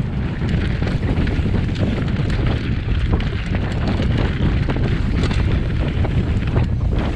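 Mountain bike riding along a dirt trail: heavy wind buffeting on the microphone over the rumble of the tyres, with frequent small clicks and knocks from the bike.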